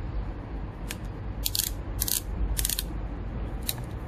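Small bit ratchet clicking in several short bursts as it is worked back and forth, turning a hex-head bolt on a motorcycle engine.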